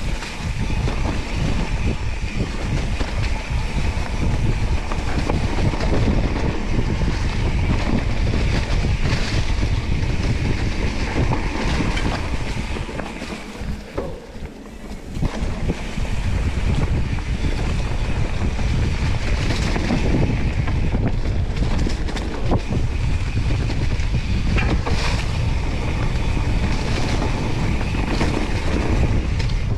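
Wind buffeting the microphone of a camera riding along on a mountain bike, with the bike clattering and rattling over rough trail; the rush eases for a moment about halfway through.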